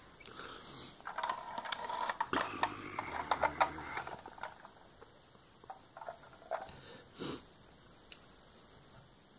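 Small plastic clicks and rattles from a toy ambulance being handled and its rear hatch opened. The clicks are densest in the first few seconds, then sparse, with one louder short scrape about seven seconds in.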